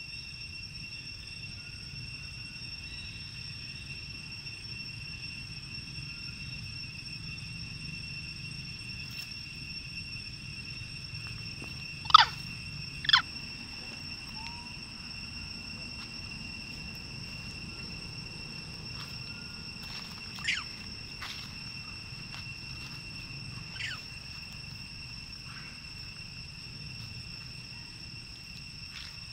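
Steady, high two-toned insect drone over a low rumble, broken about halfway through by two loud, sharp, very short animal calls, with two fainter ones later.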